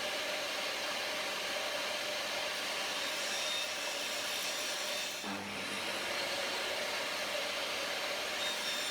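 Steady whirring of a running electric motor, as from a shop machine, with an abrupt shift about five seconds in.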